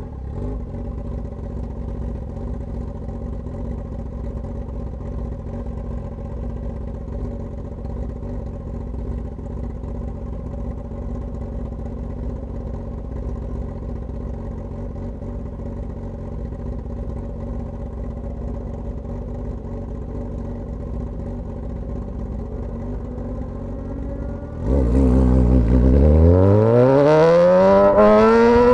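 Straight-piped Suzuki GSX-S1000 inline-four idling steadily, then near the end pulling away hard and revving up, much louder, its pitch climbing steeply.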